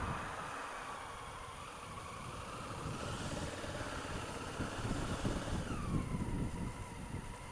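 Honda Africa Twin CRF1000L's parallel-twin engine running at low revs in town, with a whining tone that climbs slightly about three seconds in and drops to a lower steady pitch about six seconds in as the revs fall.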